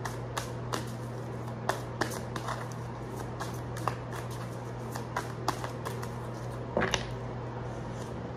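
Tarot cards being shuffled and handled: a run of quick, irregular crisp card snaps and flicks over a steady low hum.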